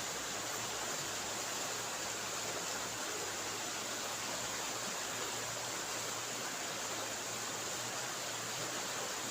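Steady, even hiss of outdoor background noise, with a faint low hum underneath and no distinct events.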